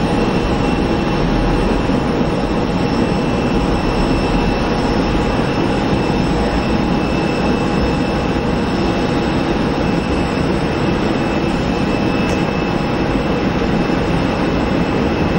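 Jet airliner's twin engines at takeoff thrust as it lifts off and climbs out: a steady, loud roar with a few high, unchanging whining tones over it.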